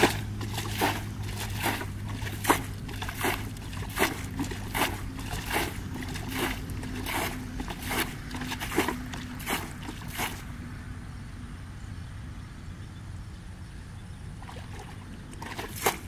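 Plastic bucket scooping and flinging muddy water in shallow ditch water, a splash a little more than once a second, bailing to drain the ditch. The splashing stops about ten seconds in and starts again near the end.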